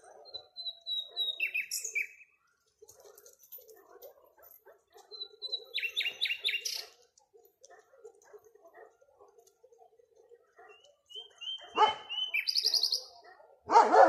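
A nightingale singing in three short phrases a few seconds apart, each a run of repeated whistled notes breaking into a fast trill. Near the end a dog barks, louder than the song.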